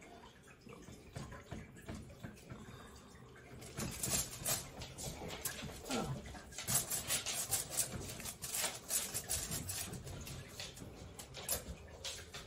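A boning knife trimming hard fat and silver skin off a rack of raw beef short ribs on aluminium foil: quiet slicing and scraping with crinkles from the foil. It is faint at first and turns into a busy run of short irregular crackles from about four seconds in.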